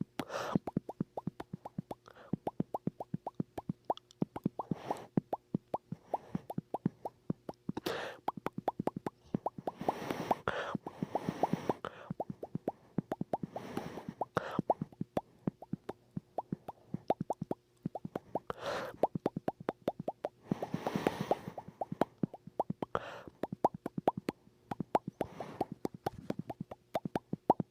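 A person making mouth pop sounds: a fast, steady string of sharp little pops, several a second, with a few short breathy noises in between.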